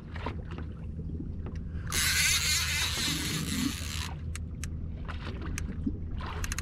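Small fishing boat's outboard motor idling steadily, with a loud rushing hiss lasting about two seconds near the middle and a few light clicks.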